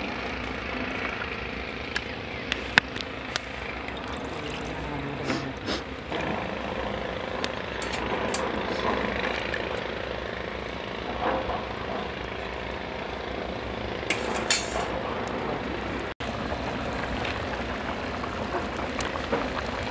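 Water poured from a small steel cup into a pot of curry, then a steel ladle stirring and clinking against the aluminium pot in scattered sharp knocks. Near the end the curry is bubbling at a boil.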